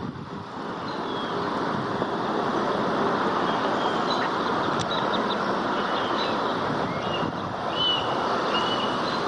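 Steady rushing background noise, with a few short, high bird chirps scattered through it, more of them from about four seconds in.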